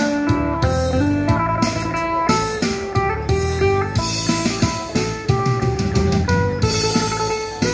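Electric phin, the Thai-Lao lute, plucked in a quick melody of single notes over low held notes.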